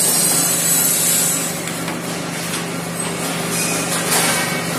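CNC pipe punching machine running: a steady mechanical hum with a high thin whine that fades out after a second and a half, as the steel tube feeds through the punching die, and a sharp metal clack about four seconds in.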